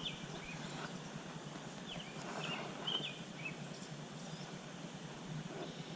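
Faint steady outdoor background with a few short, high bird chirps scattered through the middle.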